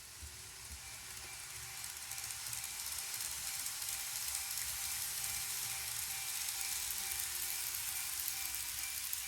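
N-gauge model train running along the layout track: a steady hiss of small wheels on rail with a faint motor whine. It grows louder over the first few seconds, and the whine drops slightly in pitch near the end.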